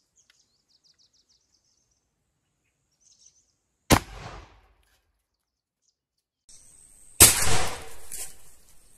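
A homemade percussion-cap muzzle-loading gun (desi topidar banduk) firing one shot: a sharp bang about four seconds in with a short tail. About three seconds later comes a second, louder bang with a longer noisy tail.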